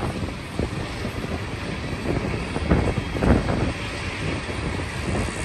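Freight train's tank cars and covered hoppers rolling past on the rails: a steady rumble of wheels on track, with a few louder clanks about three seconds in.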